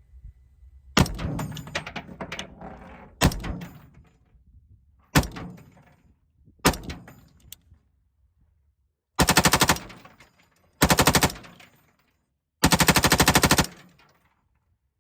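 AR-15 rifle fitted with a Lima6 belt-fed upper receiver firing: four single shots a second or two apart, each with a trailing echo, then three short fully automatic bursts, the last one the longest.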